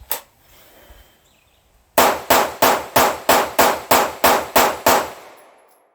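Sig Sauer P226 pistol fired ten times in quick, even succession, about three shots a second, with the reports ringing out after the last. This is a recoil-control string fired until the gun runs dry.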